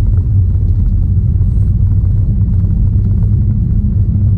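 Steady low rumble with a deep hum, unchanging throughout, with faint small ticks over it.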